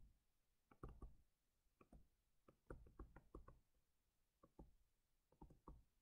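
Faint, irregular taps of a stylus pen on a touchscreen as words are handwritten, coming in small clusters of soft knocks with short gaps between.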